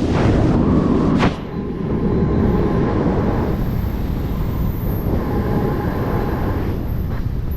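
Steady rushing wind roar on the camera's microphone during a wingsuit skydive, easing slightly just over a second in.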